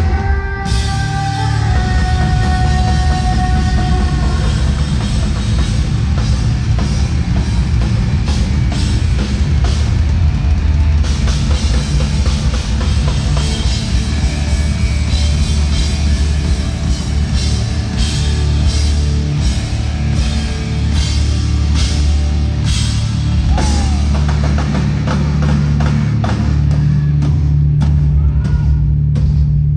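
Japanese rock band playing live and loud: a drum kit hit hard and fast under distorted guitars and bass, with held notes ringing over the first few seconds.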